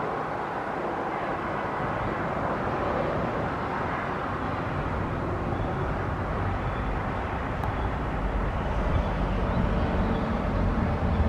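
Jet engine noise of a Boeing 777 freighter on landing: a steady rushing rumble whose low end grows stronger and slightly louder through the second half.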